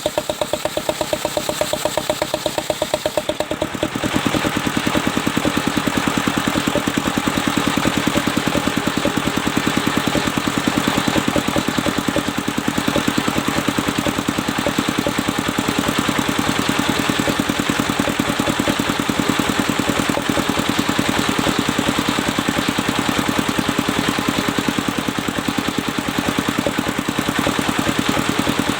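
Engine-driven sawmill circular saw running, with the engine's rapid, even beat throughout. About four seconds in the sound gets louder and a rushing hiss joins it as the blade runs under load, cutting the mahogany log.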